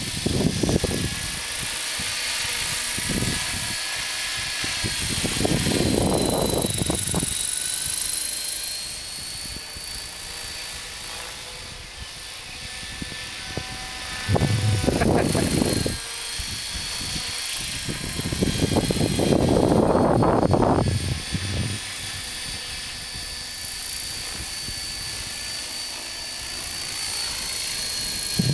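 A Hurricane 500 radio-controlled helicopter flying, its motor and rotor giving a steady high whine that dips slightly in pitch now and then. Wind buffets the microphone three times with low rumbles.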